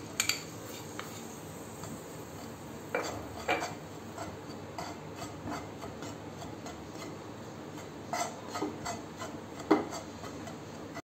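A spoon scraping and stirring dry gram flour (besan) in a non-stick frying pan as it roasts, with a few short scrapes and taps on the pan now and then over a faint steady background.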